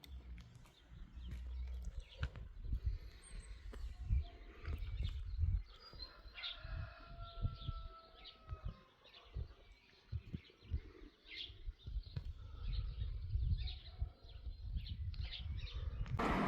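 Gusty wind rumbling on the microphone, with birds chirping now and then. Just before the end a loud rushing sound starts suddenly: the Siemens E57 siren starting up for its test alarm.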